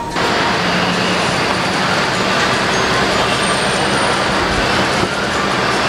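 Steady, loud noise of running vehicles and traffic in a covered car drop-off area, with a low hum beneath it.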